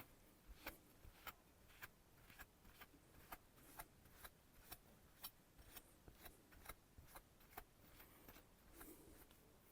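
Near silence with a faint, regular ticking, a little over two ticks a second.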